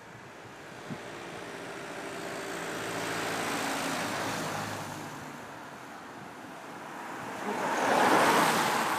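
Road traffic passing close by: one vehicle's engine note swells and fades over the first few seconds, then a louder vehicle passes near the end with a rush of engine and tyre noise.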